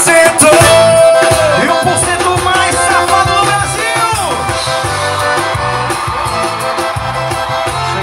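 A song with singing over a steady beat, playing through a pair of BSA CSR3 30 W coaxial in-ceiling speakers driven by an LG home-theater wireless receiver.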